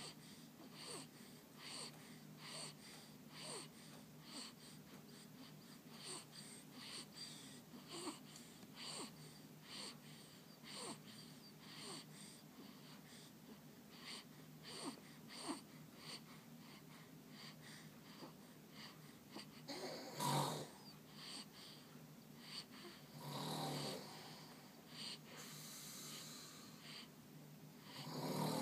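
Sleeping baby boy breathing in quick, even breaths, faint and close. Three louder, longer sounds come in the last third.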